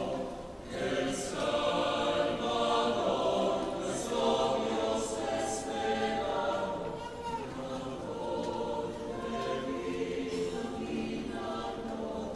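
Choir singing a cappella, several voice parts sounding together in held chords with crisp consonants.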